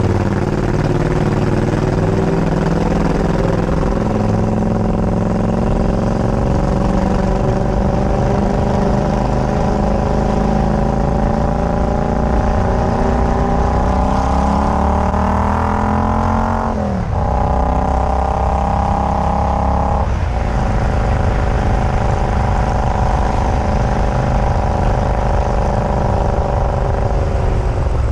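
Triumph Scrambler's parallel-twin engine pulling under way, its pitch rising slowly for about fifteen seconds, then dropping sharply at a gear change and holding steady. A second short break comes about three seconds later.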